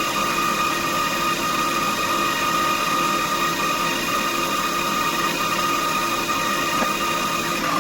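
DIY CNC machine's spindle motor running at a constant speed: a steady, loud whine with several even tones.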